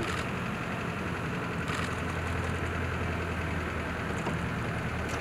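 Safari jeep engine idling steadily with a low hum, with a brief rustle near the start and another about two seconds in.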